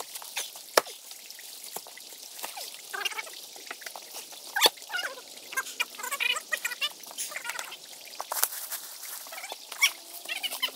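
Scattered sharp knocks and scuffs, the loudest about a second in and again near the middle, among runs of short, repeated animal calls.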